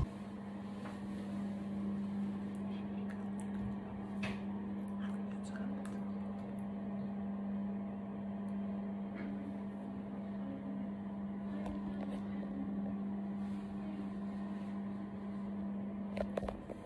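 A steady low electrical hum, with faint scattered ticks and rustles over it and a few louder clicks near the end.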